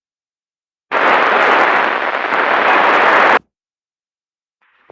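Two-way fire radio static: a loud burst of hiss about two and a half seconds long, starting about a second in and cutting off sharply, where a weak transmission comes through as noise with no readable speech. A sharp click near the end.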